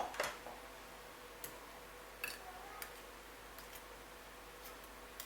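A few faint, light clicks and taps, spread out over several seconds, from a tablespoon touching the bowl as honey is spooned into the strained cough-syrup mixture. A faint steady hum lies underneath.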